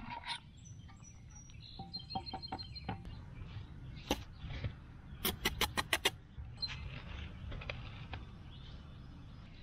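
Brick trowel tapping cored clay bricks into line against a level: one sharp tap, then a quick run of about six taps a second later. Birds chirp in the first couple of seconds, and the trowel scrapes faintly through mortar near the end.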